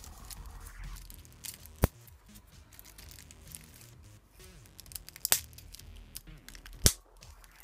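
Cellophane shrink-wrap on a deck of trading cards being picked at and torn open by hand: faint crinkling broken by a few sharp crackles, the loudest about two seconds in and near the end.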